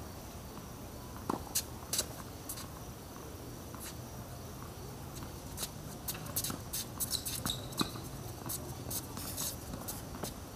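Tennis rally on an outdoor hard court: sharp clicks of racket strikes, ball bounces and shoe scuffs, sparse at first and coming thick and fast in the second half, over a faint steady high insect hum.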